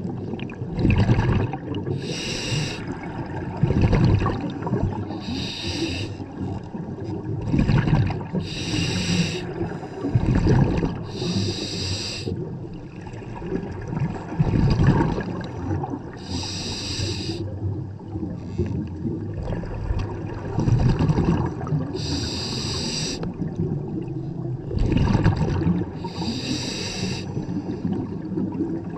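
Scuba diver breathing through a regulator underwater, about one breath every three to four seconds. Each breath is a short hiss of inhaling through the regulator, followed by a low rumble of exhaled bubbles.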